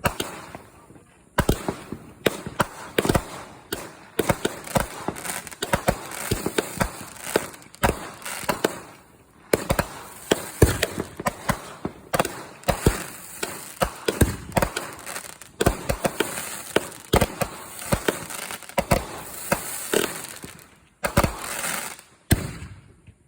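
Consumer fireworks finale: a rapid, dense string of bangs and crackling, several reports a second, with brief lulls about a second in, about ten seconds in and shortly before the end.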